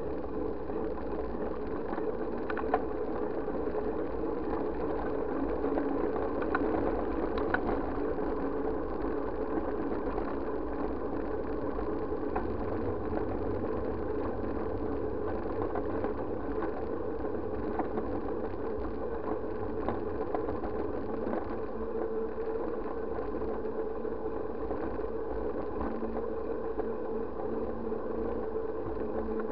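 Steady rumble and wind noise of a bike riding along an asphalt road, picked up through a bike-mounted SJ4000 action camera, with a few sharp clicks.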